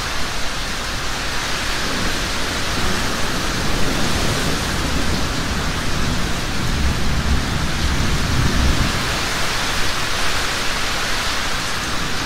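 Heavy rain falling steadily. A low rumble of thunder builds from about two seconds in, is strongest a little past the middle, and fades near the end.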